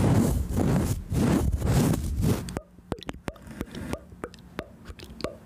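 A small paintbrush is stroked across the microphone in repeated sweeping strokes, making a loud, close-up rustling scratch. About two and a half seconds in the brushing stops and soft, scattered clicks follow.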